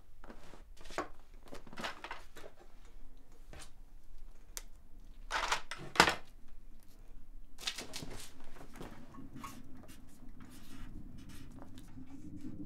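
Hand tinkering at a cluttered workbench: a run of short scrapes, rattles and clicks of small metal parts and tools, with one sharp click about six seconds in. A low steady hum comes in after about eight seconds.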